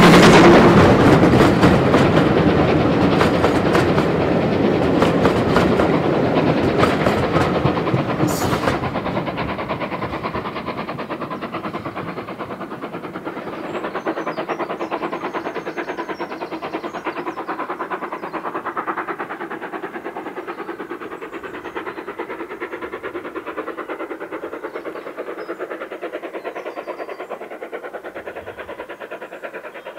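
LMS Ivatt Class 2MT 2-6-2 tank engine passing close by under steam with its coaches, a rapid run of exhaust beats and rail noise. The sound fades steadily as the train draws away.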